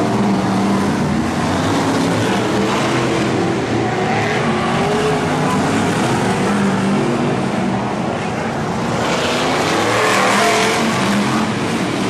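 Several BriscaF1 stock cars' V8 engines running hard around the oval, their notes rising and falling as cars accelerate and pass, swelling louder about nine seconds in as cars go by close.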